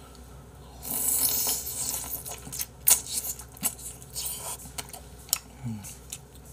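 Close-miked eating of saucy braised chicken. About a second in there is a noisy slurp lasting about a second and a half. It is followed by a run of sharp, wet smacking clicks while chewing, and then a short, low, falling 'mm' near the end.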